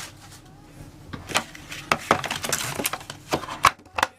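Cardboard boxes and packaging being handled and set down: a string of sharp clicks and knocks, busiest in the middle.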